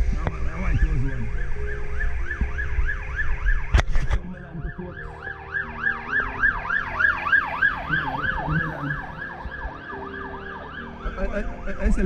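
An electronic siren sounding a fast yelp of about four rising-and-falling sweeps a second, strongest in the middle and fading away near the end. A low rumble runs under the first few seconds, with a sharp knock about four seconds in.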